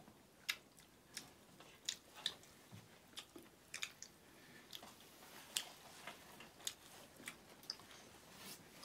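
People chewing food eaten by hand, with irregular short sharp crunches and mouth smacks, about one or two a second.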